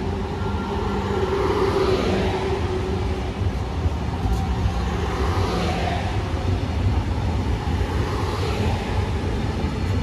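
Train running through a station: a steady heavy rumble with a low hum, and a hiss that swells about every three seconds.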